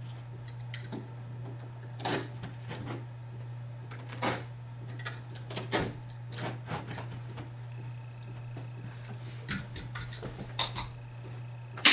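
Irregular knocks and taps from hand tools on carpet and tack strip as the carpet edge is worked along the wall, a second or two apart, with the loudest knock at the very end. A steady low hum runs underneath.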